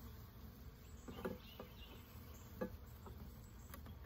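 Faint buzzing of a package of honeybees, with a few light knocks and clicks as the wooden package box is handled.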